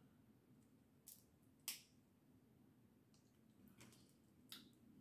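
A few faint, sharp cracks and clicks, four in all, the loudest about a second and a half in: boiled blue crab shell being cracked and picked apart by hand while eating.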